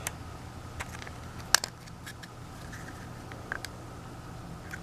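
A few sharp, separate clicks and taps of a metal screwdriver tip prying at the plastic spring housing and black end piece of a spring airsoft pistol, the loudest about a second and a half in, over a faint steady low hum.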